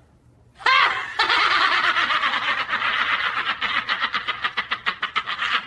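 Laughter breaking out about half a second in, then a dense, rapidly pulsing run of laughing that stops just before the end.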